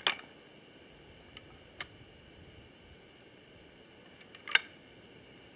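A few sharp clicks from handling a Magtech 199 20-gauge break-action shotgun: one right at the start, two small ones a little over a second in, and the loudest about four and a half seconds in.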